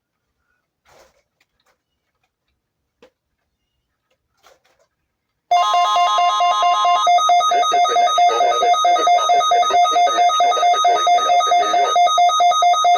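Weather radio alarm going off: a steady warning tone just above 1 kHz for about a second and a half, and a loud, rapidly pulsing electronic beep that carries on to the end. The alarm cuts in suddenly about five and a half seconds in, after a few faint clicks. It is set off by the NOAA Weather Radio warning alarm tone of a weekly test.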